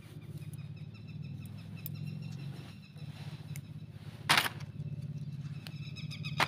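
Small plastic toy spinner being assembled by hand: one sharp plastic snap about four seconds in and a lighter click near the end, as pieces are broken off and pressed into place, over a steady low hum.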